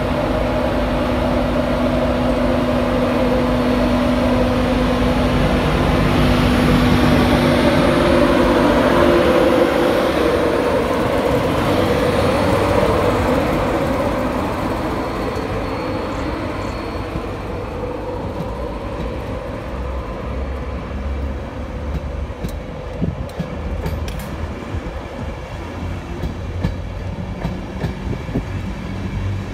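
Class 91 electric locomotive passing at low speed, its steady electric hum loud at first and fading after about ten seconds. Then Mk4 coaches roll past with a low rumble and a few clicks of wheels over rail joints.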